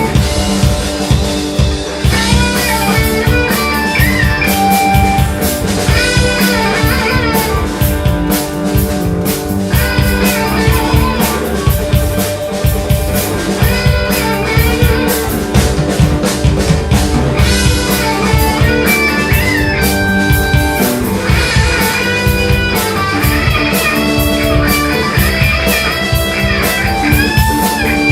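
A band playing rock music: electric guitar lines over a steady drum kit beat.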